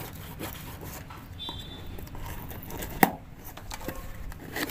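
Cardboard box being opened by hand: light scraping and scratching as the packing tape along its seam is slit and picked at, with one sharp tap about three seconds in.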